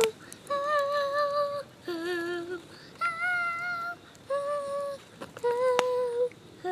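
A high voice singing a slow tune in long held notes with a slight waver, about five notes with short breaths between, and one sharp click near the end.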